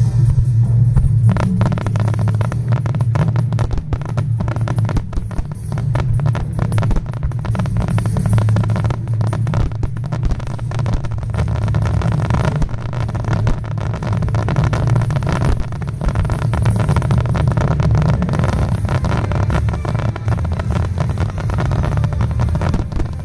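A dense, continuous barrage of aerial firework bursts: rapid crackling bangs over a deep rolling rumble, with music playing alongside, heard through a smartphone microphone.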